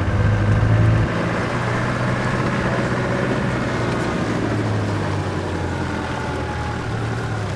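Vehicle engine running at low speed with a steady low drone, plus tyre and track rumble from driving a rough unsealed lane, heard from inside the cabin. The drone is a little louder for about the first second.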